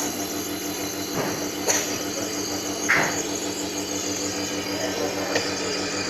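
Nebulizer compressor running with a steady hum and a high hiss of mist. A few short, louder sounds break in about one and a half and three seconds in.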